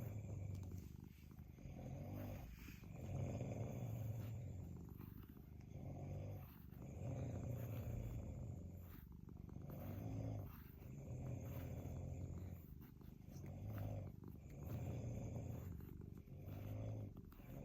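Domestic cat purring close up, a low pulsing rumble that swells and fades with each breath, about every two seconds.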